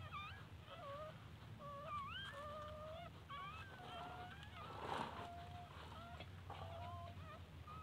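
Newborn puppies squeaking and whining while nursing at their mother: many short, high-pitched calls that slide up and down and come one after another, with a brief rustle about five seconds in.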